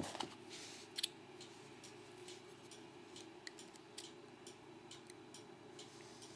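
Faint, scattered light clicks of small metal parts: tweezers picking pin tumblers and springs out of a disassembled American Lock Series 1205 padlock, with one sharper click about a second in.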